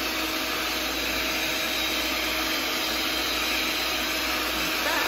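Sunbeam stand mixer running steadily at its lowest speed, its electric motor humming as the beaters turn through a thin batter.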